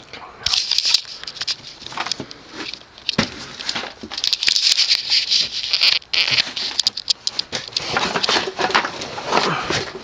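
A cardboard box being handled and turned over, with rustling and scraping and scattered knocks and taps.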